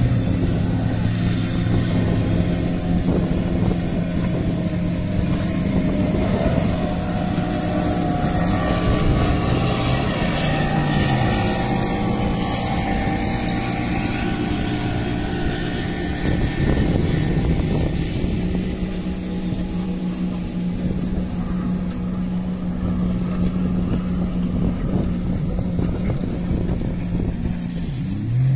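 Motorboat engine running steadily, a low drone whose pitch shifts a few times, over a haze of wind and water noise.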